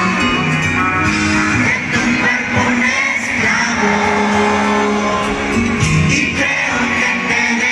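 Live band music playing loud through an arena sound system, with sung vocals and the audience singing along.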